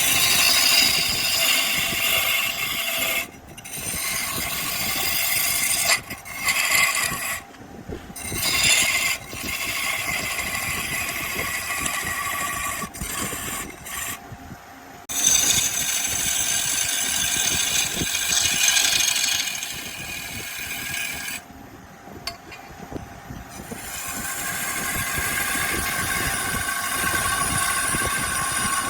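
Wood lathe spinning a log while a turning tool cuts into the wood, giving a loud scraping, shaving noise. The cutting sound breaks off for a moment several times, leaving the low running of the lathe.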